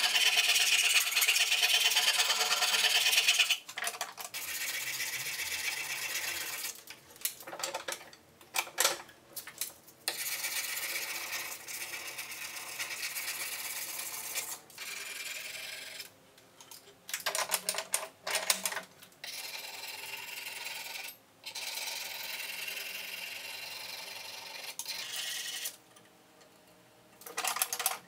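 Flat hand file rasping along the edge of a steel axe head cut from an old table saw blade, in runs of quick strokes with short pauses between them. The loudest run is in the first few seconds.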